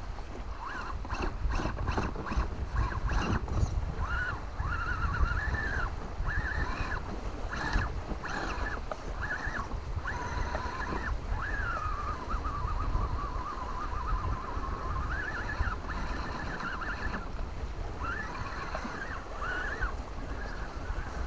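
RC rock crawler's electric motor and gear train whining in short throttle bursts, the pitch rising and falling with each burst and one longer held pull in the middle, over a steady low wind rumble on the microphone. A few clicks and knocks in the first seconds.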